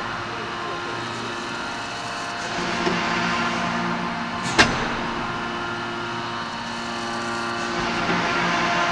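2500-ton hot forging hydraulic press at work on a glowing billet: a steady machine hum with several fixed tones, and one sharp metallic clank about four and a half seconds in.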